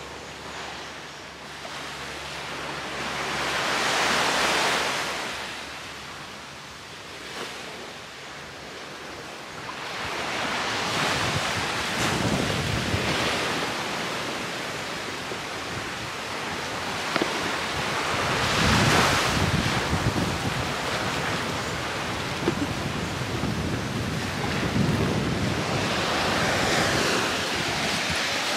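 Sea waves breaking on a beach, the surf swelling and fading four times, with wind buffeting the microphone from about a third of the way in.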